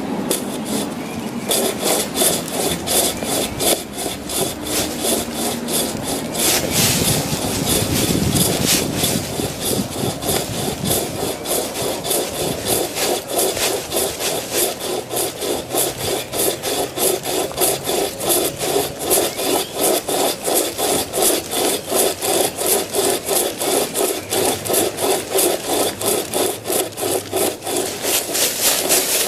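Hand-powered survival chain saw cutting through a wooden tree limb, a steady rhythm of rasping back-and-forth strokes, several a second, with a brief break in the rhythm about a third of the way in.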